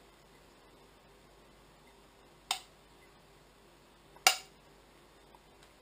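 Metal kitchen tongs clicking twice, about two seconds apart, as kebabs are picked up and set down on pitas.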